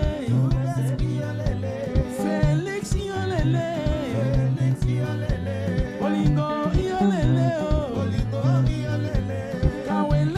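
Live soukous band playing: a steady drum beat, a repeating bass line and electric guitars, with a male voice singing over them.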